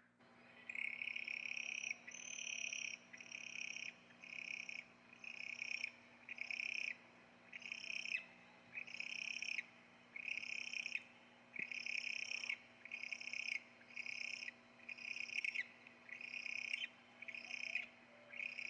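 An owl calling over and over: short, high calls, roughly one a second.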